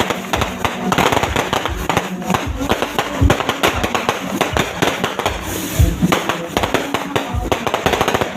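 Many fireworks and firecrackers going off at once: a dense, continuous crackle of sharp pops and bangs with no break.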